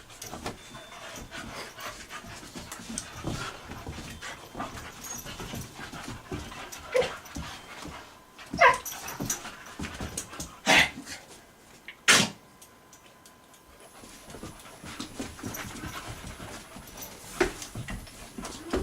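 Two puppies, a boxer and a shepherd, play-fighting: steady panting and scuffling, broken by several short, loud dog sounds in the middle, the loudest about twelve seconds in.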